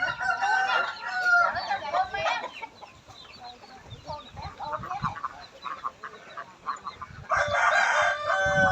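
Chickens clucking and a rooster crowing, loud bursts of calls at the start and again near the end, with scattered quieter calls in between.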